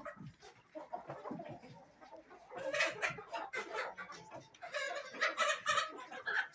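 Chickens clucking and calling, with two louder stretches of squawking, about two and a half seconds in and again about five seconds in.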